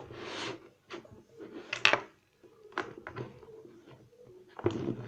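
Plastic parts of a desk fan being handled and fitted together: rustling, with sharp clicks about two and three seconds in.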